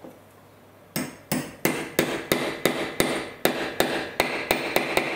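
Small hammer tapping a steel shaft into a brushless motor's rotor bell on a wooden block: about a second in, a quick even run of light taps, about three a second, with a metallic ring between them.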